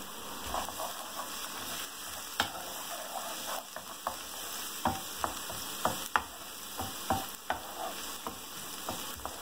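Minced garlic sizzling in hot oil in a non-stick frying pan, being sautéed until lightly browned, while a wooden spatula stirs it and knocks against the pan in sharp clicks that come more often from the middle on.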